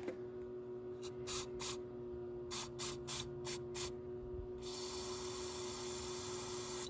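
Aerosol can of ether starting fluid spraying: about eight short squirts, then one long steady spray for the last couple of seconds. It is the ether starting aid for a Chevy 6.5 turbo diesel that will not start after years of sitting.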